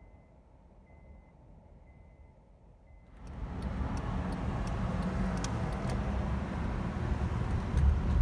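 A car being driven, heard from inside. It is quiet at first, with four faint short beeps about a second apart. About three seconds in, the noise rises sharply to a steady, louder road and traffic noise with a low rumble.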